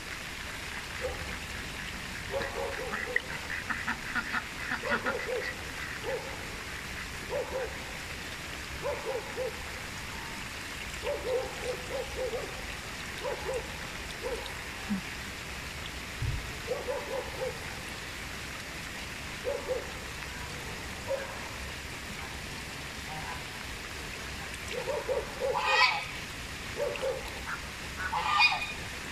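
Chinese geese honking on a pond in short calls every second or so, louder and closer together near the end, over a steady hiss of rain falling on the water.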